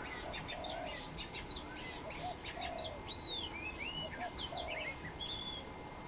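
Spotted dove cooing in short, low, soft notes, while other birds chirp and give short arching whistles higher up.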